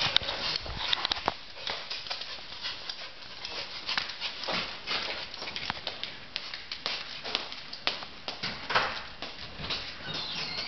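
Small dog's claws clicking and tapping on a ceramic tile floor as it moves about, in quick irregular taps.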